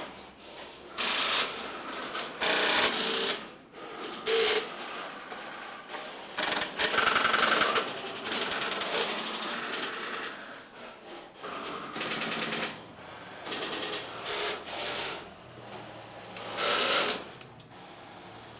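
Tesla P51 electromechanical telephone exchange at work: its relays and switches clatter in bursts of rapid clicks, each about a second long, repeating several times with quieter clicking in between.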